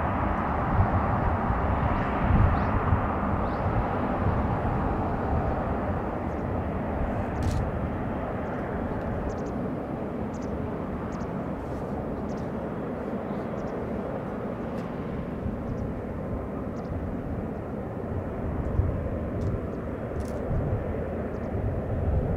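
Airbus A380's four Rolls-Royce Trent 900 turbofan engines running at taxi power: a steady jet rumble as the airliner rolls by, a little quieter after the first few seconds.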